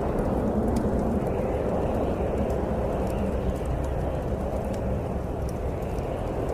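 Snowstorm wind blowing as a steady low roar, with faint scattered crackles from a bonfire.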